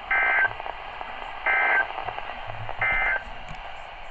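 Three short bursts of SAME digital data tones from a NOAA Weather Radio, heard through the radio's speaker: the end-of-message signal that closes the tornado watch broadcast. Each burst is a warbling two-tone screech about a third of a second long, coming about a second and a half apart over a low hiss.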